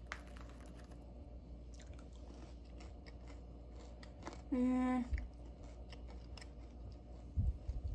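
Quiet kitchen with faint handling ticks and taps. About halfway there is a short, steady hummed 'mm', and near the end a couple of soft low thumps.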